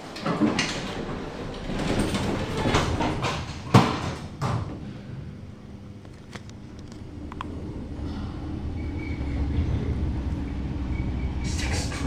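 Passenger lift doors sliding shut, meeting with a sharp knock about four seconds in, then the lift car travelling up with a steady low rumble that grows louder.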